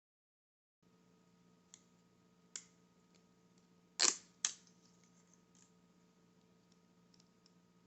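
After a second of dead silence, a few sharp clicks and then two loud snaps half a second apart, from hands working with double-sided tape and a small plastic refrigerator hinge part, over a faint steady hum.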